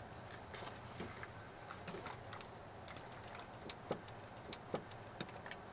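Faint, irregular clicks and ticks of a plastic screw cap being twisted on a bottle of hot water, with the plastic bottle handled in the hands.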